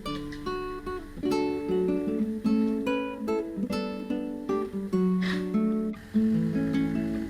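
Background music: acoustic guitar picking a melody of single plucked notes.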